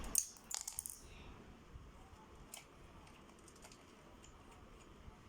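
A quick cluster of sharp clicks in the first second, then a few faint, scattered clicks.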